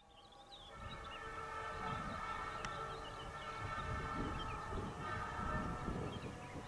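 Train running along the track, a low rumble with uneven pulsing, under steady tones. Small bird chirps sound above it.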